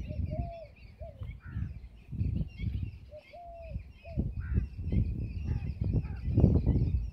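Outdoor birdsong: a chorus of small birds chirping continuously. A clear, mid-pitched two-note call repeats twice, a held note falling at its end followed by a shorter one. Low rumbling noise swells and fades underneath.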